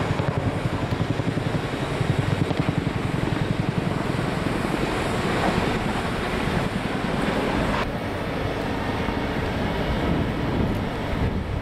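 Boeing CH-47 Chinook tandem-rotor helicopter flying low overhead: loud, rapid, even beat of its rotor blades over a rushing turbine and air noise, easing slightly about eight seconds in.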